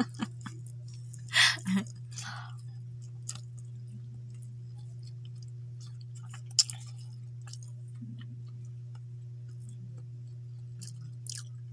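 Hand-eating sounds: fingers working rice and fish on a plate, with faint chewing and mouth clicks, over a steady low hum. A short loud burst comes about a second and a half in, and a sharp click about six and a half seconds in.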